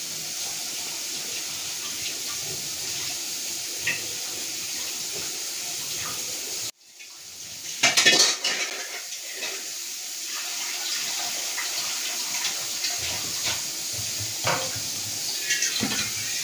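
Steel spoon clinking against an aluminium pot while spiced pani puri water is squeezed into and stirred, with some sloshing of the liquid. A steady background hiss cuts off suddenly less than halfway through, and the loudest clinks come about a second after that.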